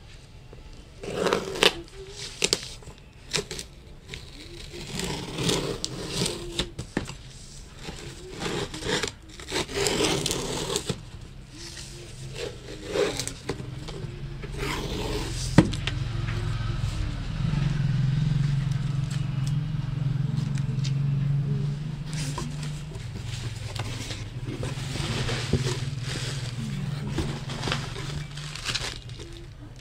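Packing tape being torn and a cardboard shipping box scraped and rustled by hands as it is opened, in short irregular scratches. About halfway through, a steady low hum sets in under the handling.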